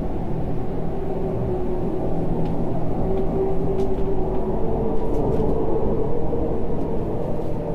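A loud, steady low rumbling drone with a few held low tones in it, growing slightly in the middle, typical of a dark sound-design bed in a tense film scene.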